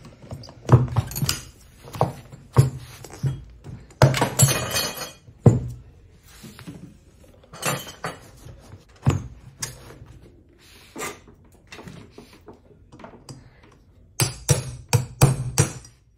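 Metal tyre lever clinking and knocking against the rim of an electric scooter's hub-motor wheel as the tyre is prised off. The knocks come in irregular groups, with a quick run of them near the end.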